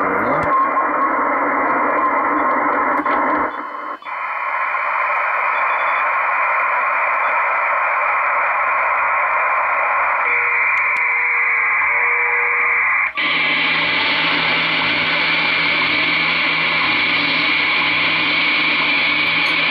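Static and band hiss from a Kenwood TS-440S HF receiver's speaker while the BHI DSP noise filter is being adjusted. The hiss changes character suddenly twice: it loses its low end about three and a half seconds in, then turns brighter about thirteen seconds in. A faint steady tone sits in the hiss for a few seconds before the second change.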